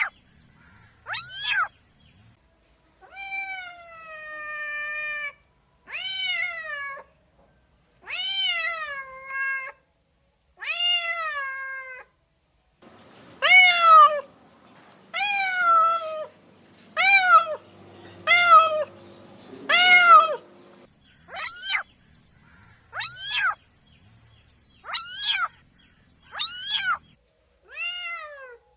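Domestic cats meowing, about fifteen meows each falling in pitch. The first set is long and drawn out, the middle set shorter and louder, and the last set short and high-pitched.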